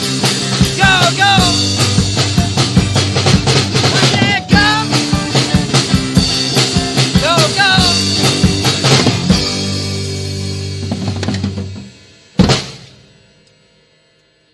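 A local band's studio recording with a drum kit keeping a busy beat under held low notes and a melody that slides up and down in pitch. The band stops about twelve seconds in on one loud final hit that rings out and fades away.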